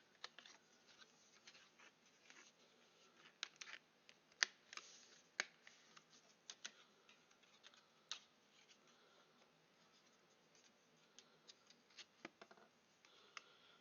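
Faint, scattered light clicks and taps over near silence, about a dozen of them, the sharpest a little over four seconds in.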